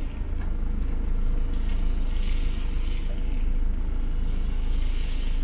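Van engine idling, a steady low rumble heard from inside the cab.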